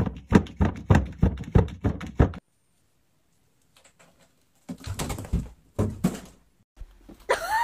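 A fast run of sharp knocks or scratches, about five a second, stopping suddenly after about two seconds. After a silent gap there are a few softer knocks and thumps.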